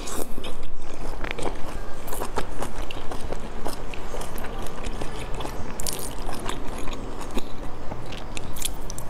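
Close-miked chewing and biting of dumplings dipped in sauce, with many short, irregular mouth clicks and smacks.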